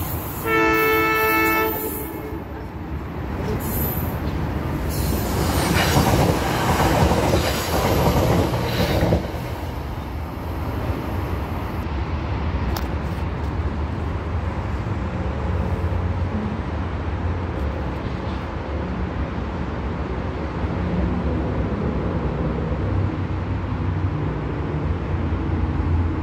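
NJ Transit electric commuter train sounding one horn blast of about a second on its approach. It then passes along the platform with a loud rush of wheel and rail noise that drops off sharply after several seconds, leaving a steady low rumble.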